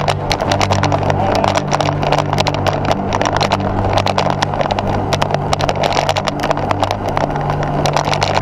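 Wind rush and rattling road noise from a bike-mounted camera on a road bike rolling along a tarmac lane, with dense irregular clicks and knocks from the rough surface. A low steady hum runs underneath.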